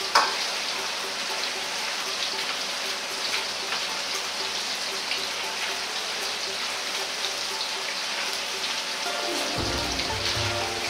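Sliced pork liver deep-frying in medium-hot oil in a wok, a steady dense crackling hiss: the liver being oil-blanched. A metal ladle clinks once against the wok right at the start.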